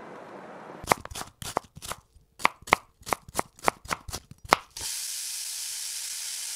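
A run of about a dozen sharp, uneven knocks over about four seconds, each with a slight ring. Then a steady high hiss starts suddenly, a little before five seconds in.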